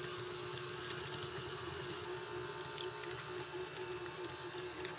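Electric stand mixer running steadily, its flat beater turning through thick creamed butter and brown sugar as an egg is beaten in: an even motor hum with one held tone.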